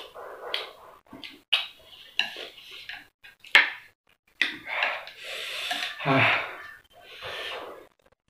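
Chopsticks clicking and scraping on a plate of spicy instant noodles, with a few sharp taps in the first few seconds. Then several loud breaths huffed and hissed through the mouth, with a short low grunt about six seconds in: the eater panting from the heat of the 2X spicy noodles.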